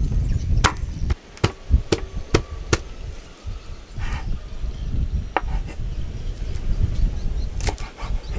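Sharp wooden chopping knocks: five in quick succession over about two seconds, then two single ones later, over a steady low rumble.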